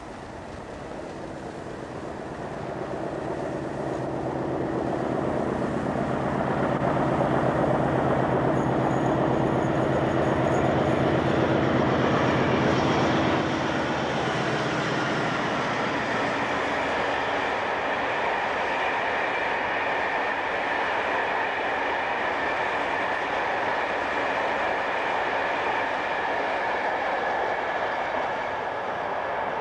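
A British Rail diesel locomotive hauling a freight train approaches and passes close by. Its engine grows louder to a peak about 13 seconds in and then drops away. Loaded hopper wagons follow, rolling past with a steady rumble and a thin high whine.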